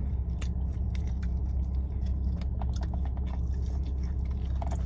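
Close-up chewing of saucy chicken wings, with many short wet clicks and small crunches, over a steady low hum.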